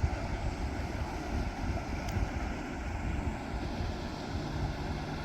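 Wind buffeting the microphone, an uneven low rumble under a steady rushing hiss.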